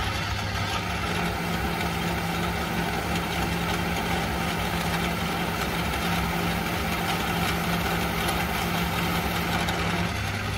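Vintage Atlas metal lathe running steadily: motor and belt-driven spindle humming while a light finishing pass is taken. One of the hum tones drops out near the end.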